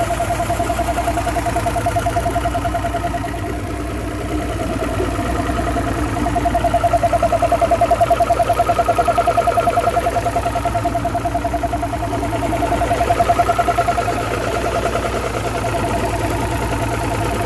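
2009 Mercury 250 ProXS Optimax outboard, a direct-injected two-stroke V6, idling smoothly at about 570 rpm with a steady whine that swells and fades a little. It runs without any clunking now that its torn fuel and air regulators have been replaced by a new factory-tuned fuel rail.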